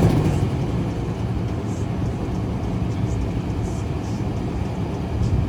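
Box Chevy Caprice's 305 V8 running at a steady idle with a low exhaust rumble, the exhaust leak quieted by retightened bolts: "quiet again."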